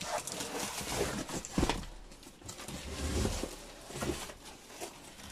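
Cardboard box scraping and rustling as a small folding table is slid out of it by hand, with dull bumps about one and a half and three seconds in.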